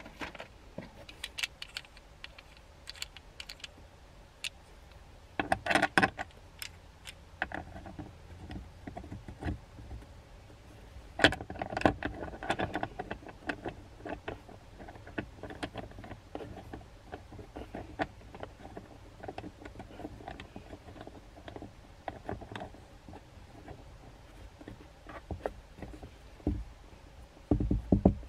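Small clicks and rattles of a dash phone-mount arm being handled and fitted onto a ball mount, with louder bursts of handling about six and twelve seconds in and near the end.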